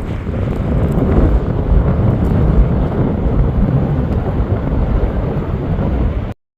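Strong wind buffeting the microphone: a loud, gusting low rumble that cuts off abruptly near the end.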